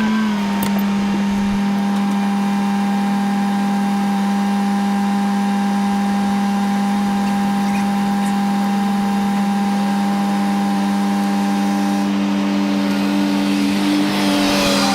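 A vehicle engine running at a steady speed, its pitch holding level, with a second, higher tone joining about ten seconds in.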